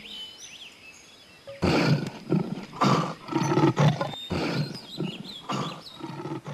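Lion roaring: a rapid series of short roars in quick succession, starting about a second and a half in, over faint bird chirps at the start.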